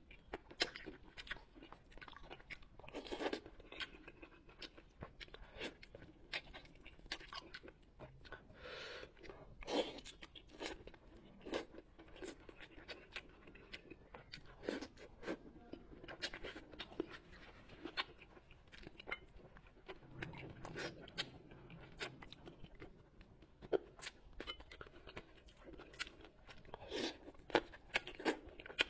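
Close-miked chewing and biting of braised bullfrog meat, a run of many short irregular clicks and crunches.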